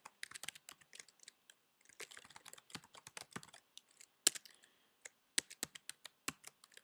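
Typing on a computer keyboard: a quick, uneven run of key clicks, with one louder stroke a little after four seconds in and a short pause just before five seconds.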